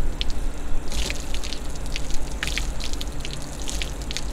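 Water from a garden hose spray nozzle splashing onto a wooden workbench as it is rinsed off, a steady spray with many small sharp splatters.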